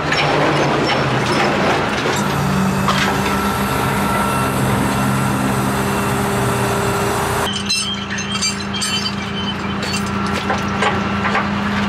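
A vehicle engine running steadily with a low hum. A rushing noise over it stops suddenly about seven and a half seconds in, leaving the engine hum and a few light clicks.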